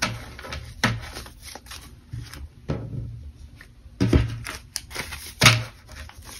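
A stack of paper banknotes being tapped and squared against a wooden tabletop, with the bills rustling between the taps. Several sharp taps come about a second apart, the loudest about four and five and a half seconds in.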